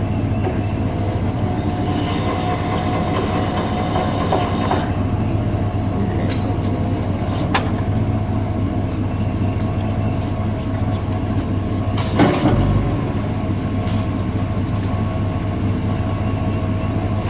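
An engine running steadily with a low hum, under a few sharp clicks and knocks, the loudest about twelve seconds in.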